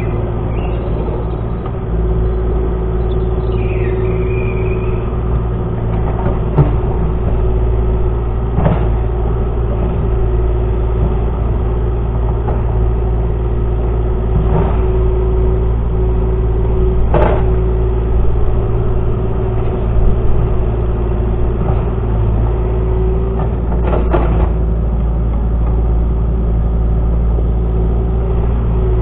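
Excavator's diesel engine running steadily under work, with a constant whine over the low drone. Sharp metallic knocks come every few seconds, about eight of them.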